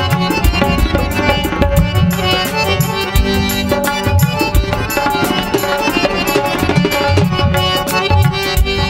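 Instrumental live Punjabi band music: a fast, steady tabla rhythm over held harmonium and keyboard notes, with no singing.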